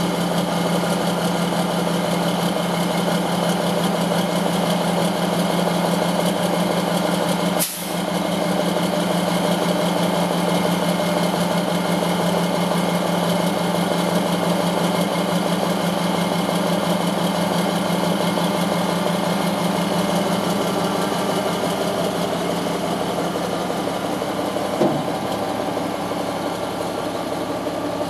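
Mack dump truck's diesel engine running steadily while the hoist raises the dump body. A brief click and dip come about eight seconds in, and a short knock near the end.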